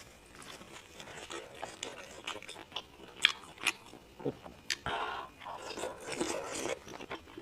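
A person eating close to the microphone: chewing with crisp crunches and sharp clicks, the strongest a few seconds in.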